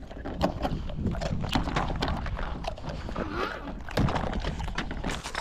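Dogs chewing and crunching pork rinds, with many irregular short crackles and clicks, over a steady low rumble.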